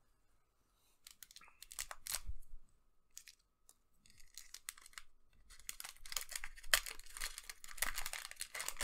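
A few light rustles and taps of a cardboard booster box, then a trading-card booster pack's foil wrapper crinkling and tearing open, busiest over the last three seconds.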